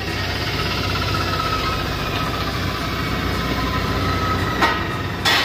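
Handheld power cutter with an abrasive disc running steadily with a faint whine, the disc briefly biting into the steel sheet near the end. The cutter is making partial slot cuts across the sheet so it can be bent into a round top.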